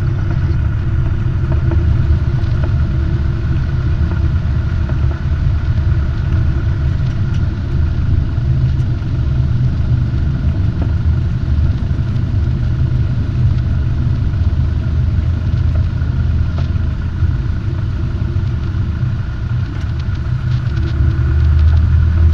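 Robin DR400 light aircraft's piston engine and propeller running at idle during the landing rollout, heard inside the cabin as a steady low drone with a few held tones, growing a little louder near the end.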